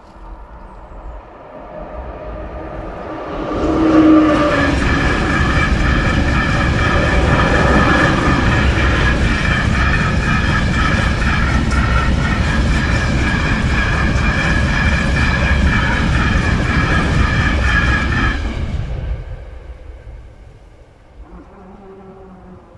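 Freight train of container wagons passing over a level crossing, wheels running on the rails. It grows over the first few seconds, stays loud for about fifteen seconds, and fades away a couple of seconds before the end.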